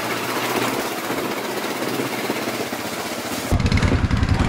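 A steady rushing noise for about three and a half seconds, then, after an abrupt change, the close-up engine of an ATV idling with a rapid low throb.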